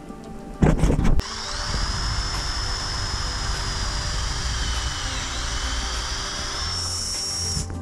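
A loud clunk about half a second in, then a Ridgid cordless drill runs steadily into a white oak panel for about six seconds, its motor whine sagging briefly in pitch under load before it stops near the end.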